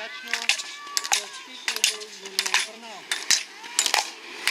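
Rapid, irregular sharp clicks, about three or four a second, as an inline slalom skater with poles runs through the gates: pole tips striking the asphalt and gate poles being hit.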